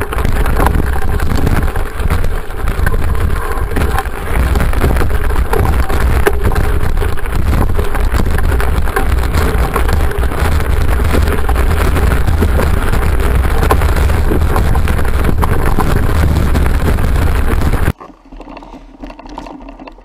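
Mountain bike riding down a rough dirt trail, heard from a camera on the handlebar: steady wind rumble on the microphone with constant rattling and clattering of the bike over the ground. It cuts off suddenly near the end, leaving much quieter trail sounds.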